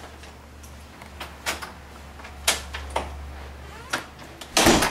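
A door being opened: several sharp clicks and knocks from the handle and latch, then a louder burst of noise lasting under half a second near the end, over a low steady hum.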